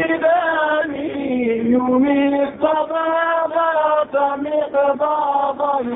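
A man chanting a Sufi devotional poem in a melodic voice, holding long notes with short breaks between phrases.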